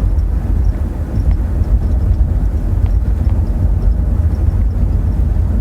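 Steady low rumble of a car driving: road and engine noise with no change in speed.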